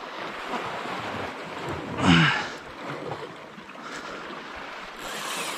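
Sea surf washing on the shore with wind buffeting the microphone. About two seconds in, a man gives one short wordless vocal sound that falls in pitch.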